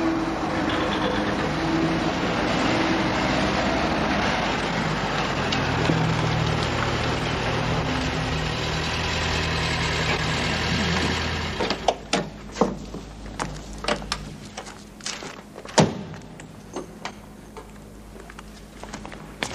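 A car engine running, which stops about two-thirds of the way through. High-heeled shoes then click on hard ground in uneven steps, with one louder knock among them.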